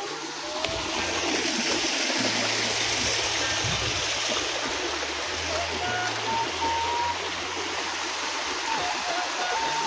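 Water pouring over a low stone weir into a river: a steady rushing that grows louder about a second in and then holds.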